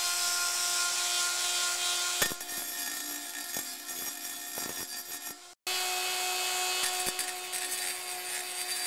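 Dremel-style rotary tool with a small grinding bit running at a steady high whine while grinding the end of a steel bicycle frame tube down to a fine miter. A click about two seconds in, then a rougher grinding rasp; the sound breaks off for an instant past the middle and resumes.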